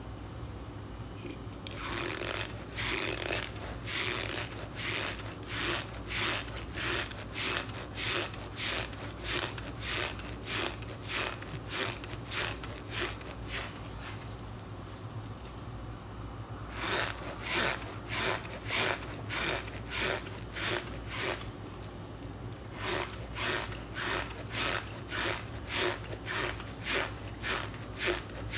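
Packed cornstarch squeezed and rubbed by hand, a rhythmic squeaky crunching about twice a second, with a pause of a few seconds midway.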